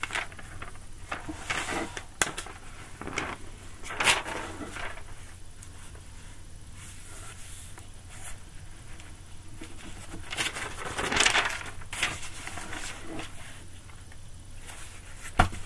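Irregular rustling and handling noises with a few light knocks, the loudest a short knock near the end.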